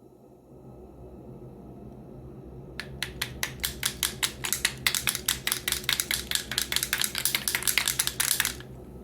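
Wooden baby rattle shaken, giving a run of sharp wooden clicks that begins about three seconds in, quickens to a dense rattle, and stops suddenly near the end.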